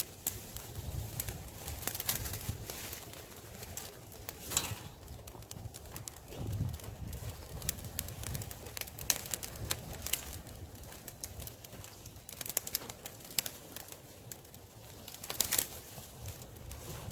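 Campfire of dry wood crackling and popping as it catches, with scattered sharp snaps, two of them louder, a few seconds in and near the end.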